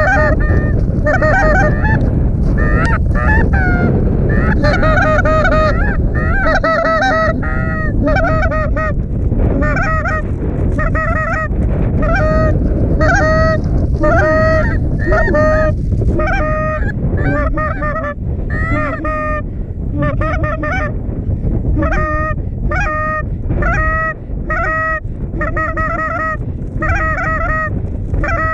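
Geese honking: short, clipped honks about two a second over the low rumble of strong wind on the microphone.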